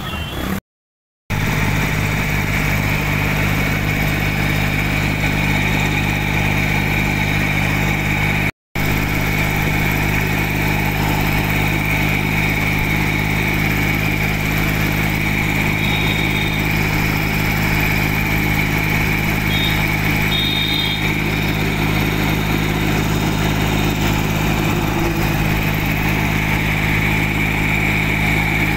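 Small Sonalika tractor's diesel engine running at a steady speed as the tractor drives along, heard close up from on board.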